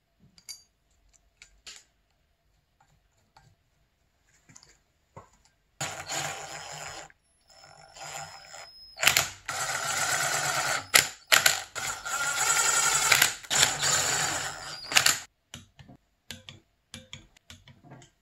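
Cordless drill spinning socket-headed M6 bolts into an engine's aluminium end plate. It runs in several bursts of one to a few seconds with short stops between. Light clicks and taps of tools and bolts on metal come before and after.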